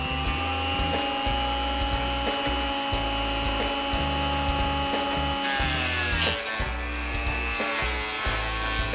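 Porter Cable benchtop jointer/planer's electric motor running with a steady whine while cutting wood. Its pitch sags and wavers about five and a half seconds in, then recovers. Background music plays underneath.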